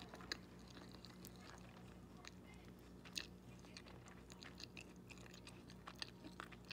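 Faint chewing of crunchy toast topped with hard-boiled egg: irregular small crunches and mouth clicks.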